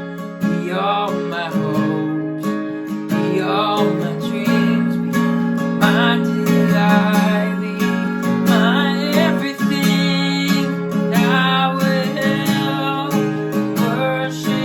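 Worship song on strummed acoustic guitar, with a voice singing the melody over the held chords.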